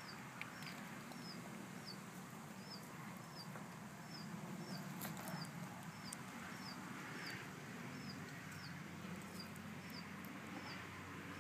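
A bird in a tree chirping steadily: one short, high chirp repeated about every half second.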